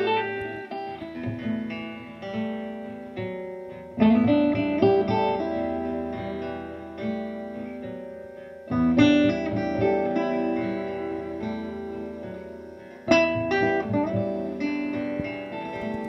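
Guitar music: a slow melody of plucked notes that ring on and fade, with a fresh strongly plucked phrase starting about every four to five seconds.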